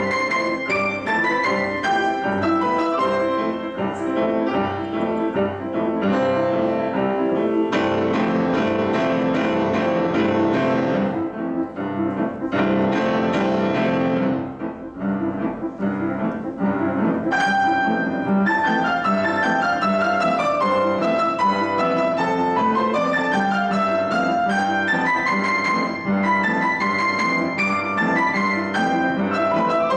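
Solo piano playing a fast, busy classical piece with dense repeated notes. Midway it thins out briefly, then a melody falls and rises in waves.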